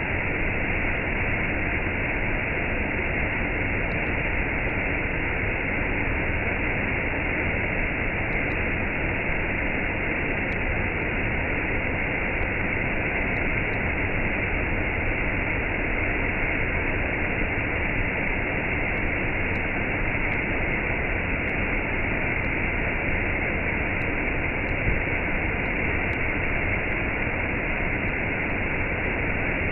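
Waterfall with a cascade: a steady, unbroken rush of falling water.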